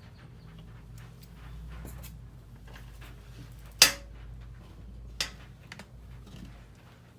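Handling noises: scattered light clicks and knocks over a low rumble, with one sharp click about four seconds in and a smaller one a little over a second later.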